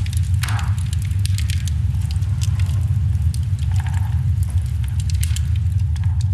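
Wood fire crackling with many sharp irregular pops, over a steady low rumble.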